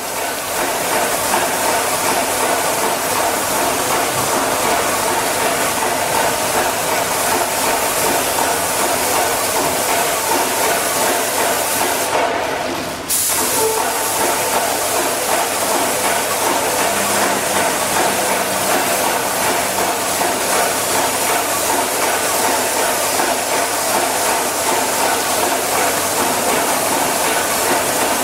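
Paint sprayer spraying paint onto a concrete block wall: a loud, steady hiss with a brief dip about twelve seconds in.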